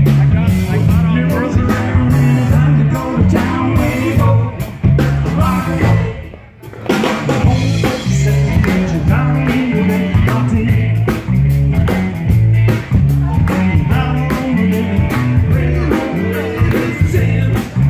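Live blues-rock band playing, with a repeating bass riff under electric guitar and a drum kit. The band drops out briefly about six seconds in, then comes back in.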